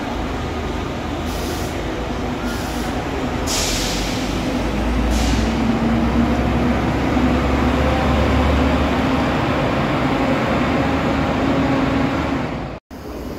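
Intercity coach's diesel engine running with a low rumble that grows louder about four seconds in, with four short hisses of compressed air from its air brakes in the first half. The sound breaks off abruptly near the end.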